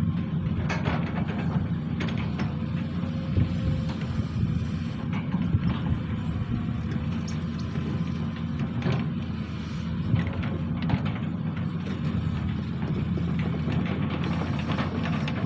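Diesel engine of a SANY SY215C hydraulic excavator running steadily under work, with occasional short clanks from the machine's metal parts.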